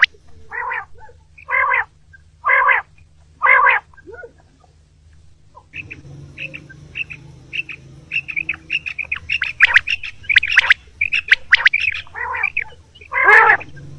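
Common quail calling: four evenly spaced calls about a second apart, then after a short pause a busier run of many quick chirps over a low steady hum, with louder calls returning near the end.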